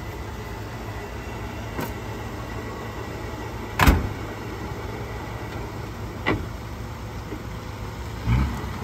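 1937 Plymouth's 201 cubic-inch flathead six idling steadily, with a car door slamming shut about four seconds in. A couple of lighter clicks and a low thump come near the end.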